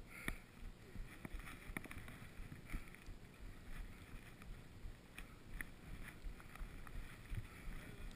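Skis sliding through deep powder snow, a low, uneven rush with a few faint clicks scattered through it.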